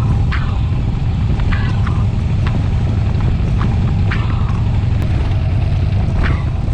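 Motorcycle running on the road, a steady low rumble with brief scraps of wind noise on the microphone every second or so.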